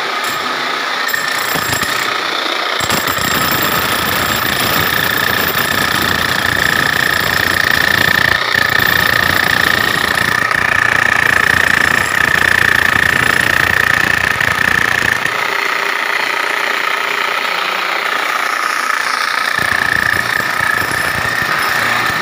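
Corded electric demolition hammer with a chisel bit hammering into a masonry wall, running almost without pause: rapid blows under a steady high motor whine. The deep pounding lightens for a few seconds about two-thirds of the way through, then picks up again.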